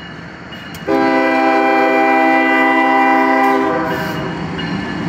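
Norfolk Southern GE ES40DC diesel locomotive sounding its air horn in one long, steady blast that starts about a second in and lasts nearly three seconds, a warning for the road crossing. Around it is the rumble of the locomotive and train passing close by.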